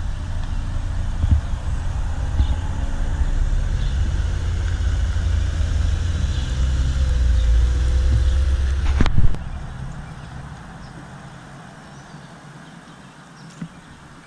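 A car engine running close by with a deep, steady rumble that grows louder, then drops away abruptly with a click about nine seconds in, leaving quiet background.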